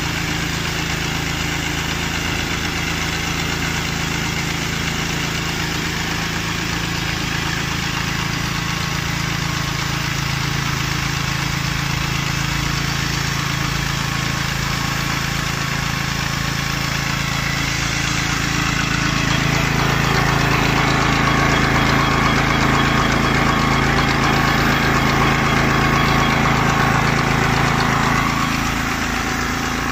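Small petrol engine of an airless road-marking machine running steadily as it drives the paint pump, with the spray guns hissing. A louder hiss joins in about two-thirds of the way through and drops away near the end.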